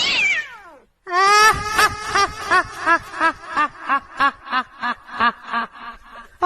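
A high-pitched voice laughing in a long run of short 'ha' pulses, about three a second, slowly growing quieter. It comes just after a quick falling pitched swoop.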